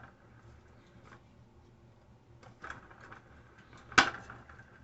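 Slime being turned in a mixing container: a faint low rumble with a few small clicks and one sharp knock about four seconds in.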